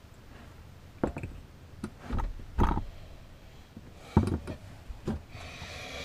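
Scattered knocks, clunks and rubbing as hands work among plastic water hoses and fittings in a cramped compartment, with a short rough rustle near the end.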